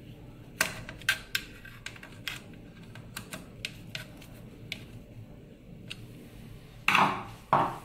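Scattered small metal clicks and ticks as a screwdriver turns and tightens the screws of a cooling-fan bracket in the analyzer's chassis. Two louder knocks come close together near the end.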